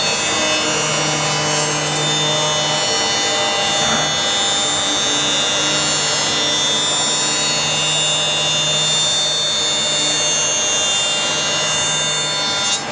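CNC woodworking router's spindle running steadily at speed, a high multi-tone whine over a low hum, with no change in pitch.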